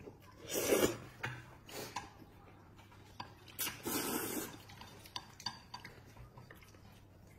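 Noodles being slurped in two long pulls, about half a second in and again around four seconds. In between and after, chopsticks click and scrape against an enamel basin.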